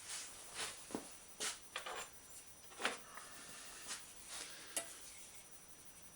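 A steel bicycle fender stay being twisted on its freshly set rivet: light metallic clinks and taps, about eight, at irregular intervals, the sharpest about 3 and 5 seconds in.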